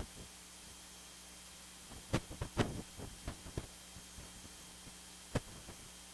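Low steady hum, with a quick run of light clicks and knocks about two seconds in and a single sharp click near the end.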